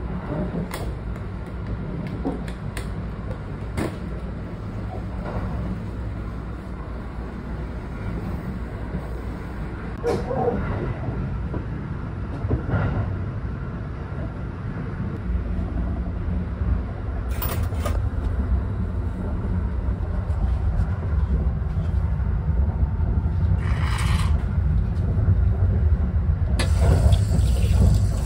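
Running rumble of the Kintetsu Hinotori express train heard from inside the car, growing louder about halfway through. There are a few sharp clicks from a coin locker's key and door in the first seconds. Near the end, water starts running from an automatic washbasin tap.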